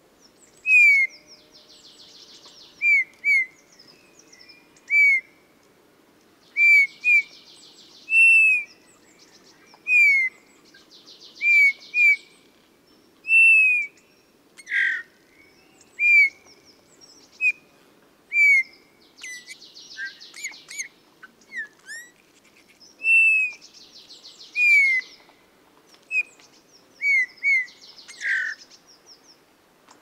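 Male Eurasian bullfinch singing: short, soft falling whistles repeated every second or two, mixed with rasping, creaky buzzes that sound like squeaking metal.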